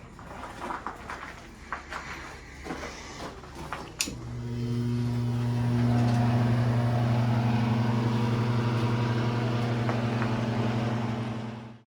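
A few light knocks and rustles, then a click about four seconds in as an electric fan motor switches on. It hums steadily, building up over a couple of seconds as the fan spins up, and cuts off suddenly near the end.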